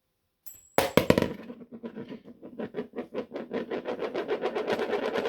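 A coin lands on a hard surface with a clatter about a second in, then spins and wobbles on it, its rattling ticks coming faster and faster as it settles.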